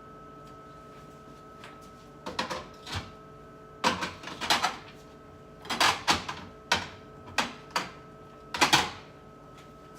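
Food containers and packages being handled and set down on refrigerator shelves: clusters of knocks, clatters and rustles, over a steady hum.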